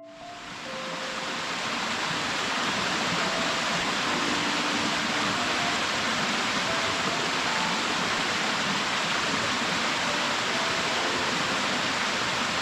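Waterfall rushing steadily into its plunge pool, fading in over the first second or two. Faint piano notes sound under the water.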